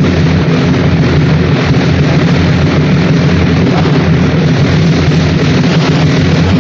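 A loud, steady rushing noise with a low hum beneath it, starting abruptly.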